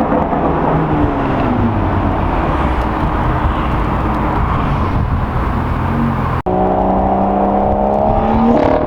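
Exhaust of a BMW M2 F87's turbocharged straight-six with aftermarket downpipes, loud and rough. After a sudden cut about six seconds in, the engine pulls under acceleration with a steadily rising pitch.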